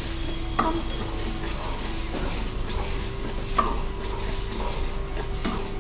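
Spinach paste sizzling in a wok as a steel ladle stirs it through the masala, with two sharp knocks of the ladle against the wok, about half a second and three and a half seconds in.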